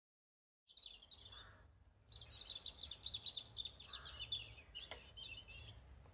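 A small songbird singing a fast, high twittering song that starts about a second in and runs for several seconds, over a low steady rumble, with one sharp click near the end of the song.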